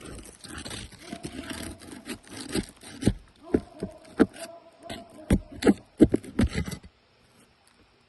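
A hand tool scraping and knocking against asphalt roof shingles, with a run of sharp knocks in the middle that stops abruptly about seven seconds in.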